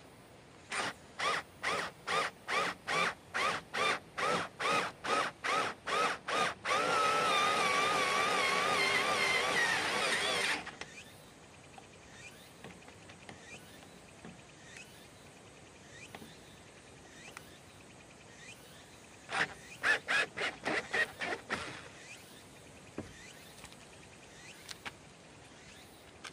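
Cordless drill driver spinning a wood hole saw into plywood. The motor whine comes in short spurts about twice a second, then runs steadily for about four seconds with its pitch wavering as the saw bites. After a pause comes a second, quicker run of short spurts.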